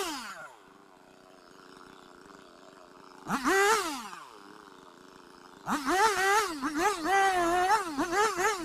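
Two-stroke chainsaw idling, with one rev-up a few seconds in. From about two-thirds of the way through the throttle is blipped over and over, the pitch rising and falling roughly twice a second.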